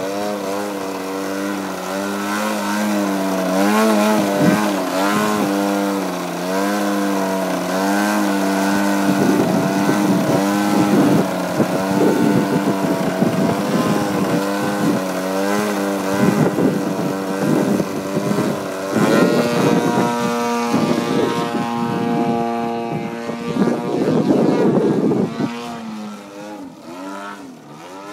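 Radio-controlled aerobatic model airplane's engine and propeller running hard, the pitch rising and falling with the throttle as the plane hovers nose-up and manoeuvres. It holds a steadier pitch for a few seconds past the middle, then grows fainter near the end as the plane moves away.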